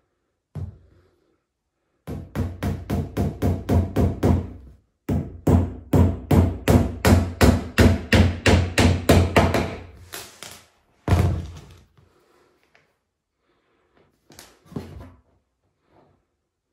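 Claw hammer driving small nails into the edge of a chipboard panel: quick light blows, about four or five a second, in two long runs, then a single blow and a few more near the end.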